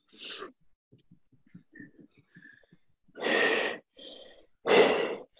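A person breathing hard and heavily, out of breath from a round of burpees: a few loud breaths with a gap between the first and the rest, the loudest near the end.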